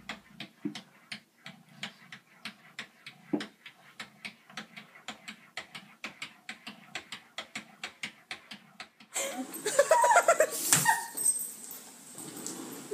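Light, quick taps, about four a second, as a cat paws at its reflection in a bathroom mirror. About nine seconds in, much louder rattling of a screen door as a cat clings to it, with high whining animal cries.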